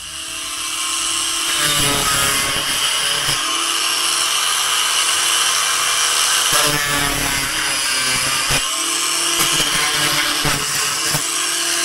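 An electric power tool running steadily at high speed, its pitch dipping briefly several times as the tool is loaded.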